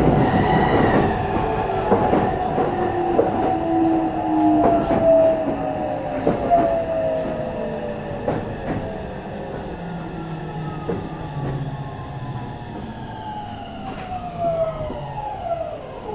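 Meitetsu 300-series commuter train (set 317F) heard from on board as it slows down: the motor and inverter whine falls steadily in pitch, dropping sharply near the end, with the clicks of the wheels over rail joints growing sparser.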